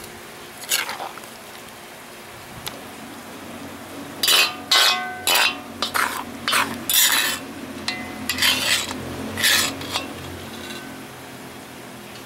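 A metal ladle and wooden spatula scraping and clattering against a hot wok as stir-fried pepper steak is scooped out of it. There is a quick run of loud scrapes between about four and ten seconds in, some with a short metallic ring, over a steady low hiss from the wok.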